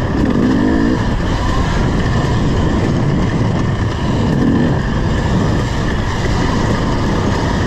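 KTM 250 EXC two-stroke enduro bike engine running hard on a trail ride, revs climbing briefly about half a second in and again around four and a half seconds.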